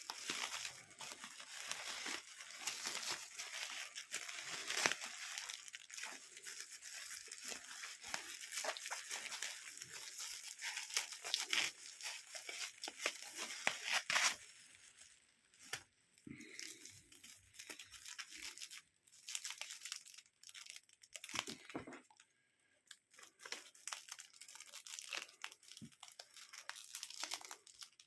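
Packaging being torn open and crinkled by hand. It starts as a dense, continuous tearing and crackling, then thins out about halfway through into scattered rustles and clicks.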